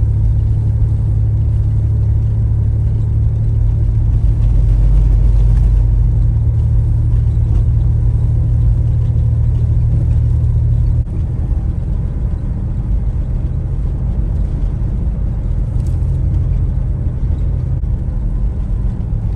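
Car driving, with a steady low drone from the engine and road; the drone drops a little about eleven seconds in.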